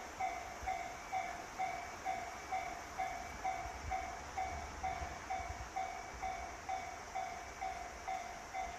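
Japanese railway level-crossing warning alarm ringing its repeating electronic bell tone, a little over two strikes a second, the signal that a train is approaching the crossing.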